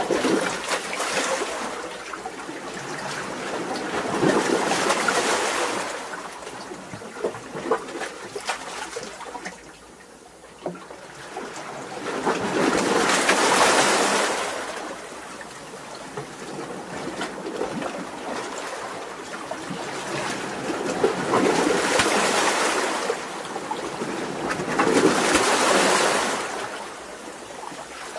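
Waves washing in between rocks, swelling into a rushing surge every few seconds and draining back with trickling, splashing water in between.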